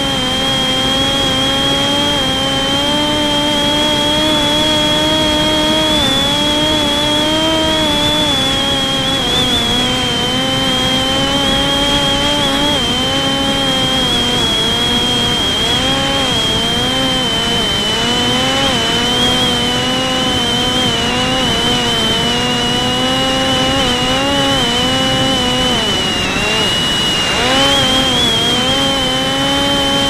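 Parrot Disco fixed-wing drone's electric motor and rear pusher propeller running steadily at part throttle, a low drone with a high whine above it. The pitch wavers slightly as the aircraft flies.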